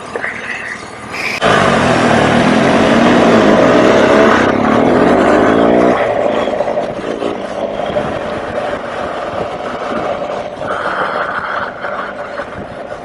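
BMW R1200GS Adventure's boxer twin accelerating hard, with a rush of wind over the helmet microphone. It comes in suddenly about a second and a half in, its pitch rising, and eases back to a steadier cruise around six seconds in.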